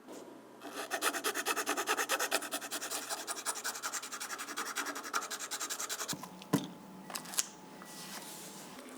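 Rapid back-and-forth rubbing strokes on a hard surface, about six a second, stopping about six seconds in. A few sharp clicks follow.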